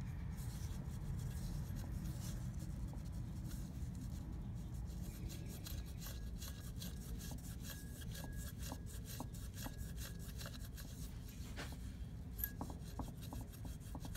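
Gloved hands handling a Chrysler LeBaron turbocharger's housings: metal rubbing and scraping, with a run of small clicks and taps from about a third of the way in, over a steady low hum.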